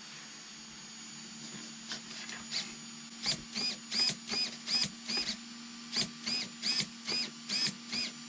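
RC buggy steering servo whirring in a quick series of short sweeps, roughly two or three a second, each a small whine that rises and falls as it drives the steering back and forth. A brief pause comes midway, and a steady low hum runs underneath.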